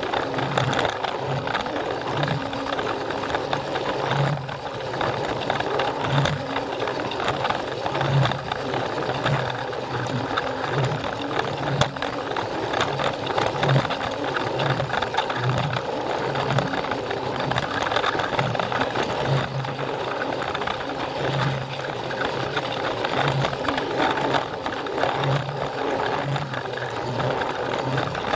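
Battery-powered Plarail toy train's small electric motor and gearbox whirring steadily as it runs, with its wheels rattling along the plastic track and a low knock coming back irregularly about once a second.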